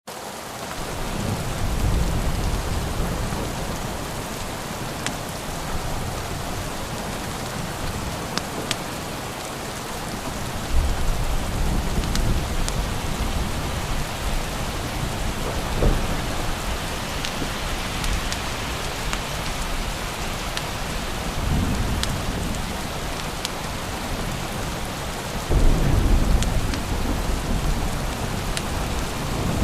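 Steady rain with low rolls of thunder coming and going; the strongest roll starts suddenly near the end. Scattered sharp ticks sound over the rain.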